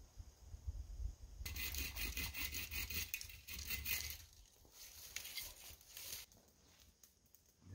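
Rasping strokes of a hand saw cutting through wood, starting suddenly about a second and a half in and stopping about six seconds in, over a low rumble of wind on the microphone.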